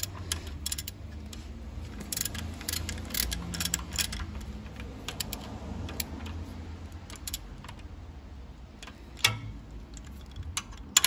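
Irregular metallic clicks and clinks of a socket wrench and extension turning a steel stud bolt into a Toyota Prado 78's knuckle arm, with a sharper clank about nine seconds in. The stud is going in stiffly, and the owner fears he has started it crooked.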